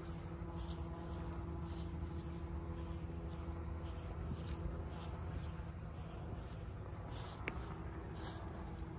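Footsteps scuffing along a path, about two a second, over a steady low hum.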